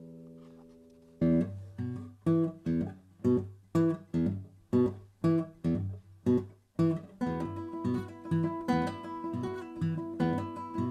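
Duet for two guitars: a held chord dies away, and after a short pause about a second in, sharply plucked notes start in a steady pulse, growing denser and fuller about seven seconds in.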